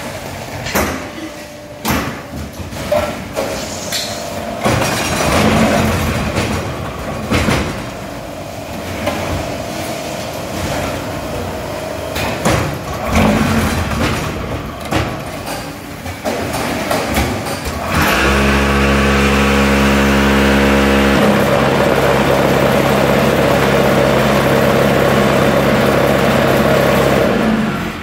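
Hydraulic cement block machine with bottom vibration working through a moulding cycle: irregular clanks and knocks of moving parts and hydraulics, then about two-thirds in a loud, steady hum from the vibration table that shifts in tone after a few seconds and cuts off suddenly near the end.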